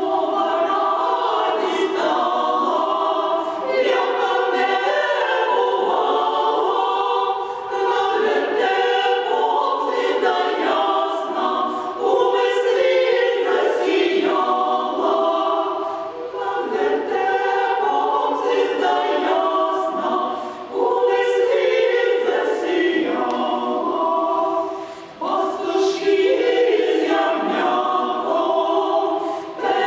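Women's choir singing a cappella, a Russian Orthodox sacred Christmastide chant in several parts, with short breaks between phrases about twenty and twenty-five seconds in.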